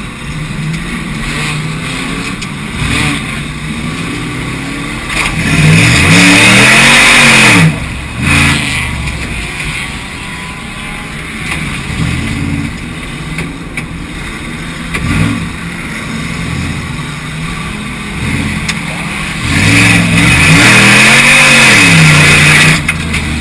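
Racing cars' engines running around an oval track, with the pack passing close twice, about fourteen seconds apart. Each pass is loud enough to overload the recording, its engine pitch rising then falling as the cars go by, and the engines sound more distant in between.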